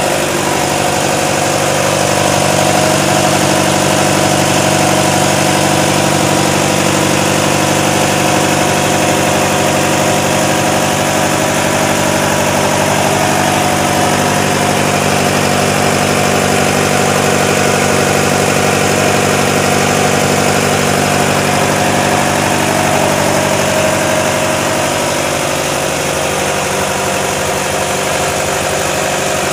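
Mitsubishi 4D-series four-cylinder diesel engine running steadily, driving the dynamo that powers the boat's fishing lamps. It eases off a little in the last few seconds.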